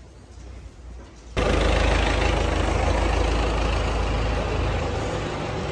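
A heavy engine running loudly and steadily, cutting in suddenly about a second and a half in after a faint low hum.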